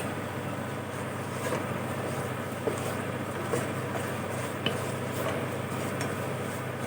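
Steady low hum under an even hiss, with a few faint light clicks scattered through.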